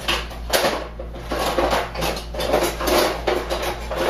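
Metal kitchen utensils clattering in a drawer as someone rummages through it: a run of irregular clinks and knocks.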